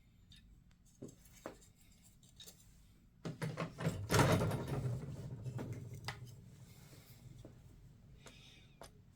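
Plastic parts of a scale model airliner being handled and fitted together: two light clicks, then a few seconds of knocking and rubbing, loudest near the middle, fading away afterwards.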